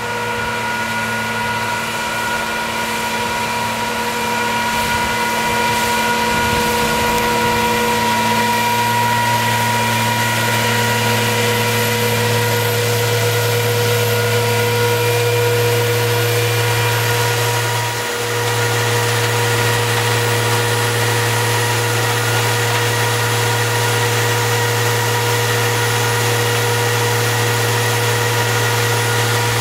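Engine of a Miller Nitro self-propelled high-clearance machine running steadily with an even hum. It gets a little louder over the first several seconds.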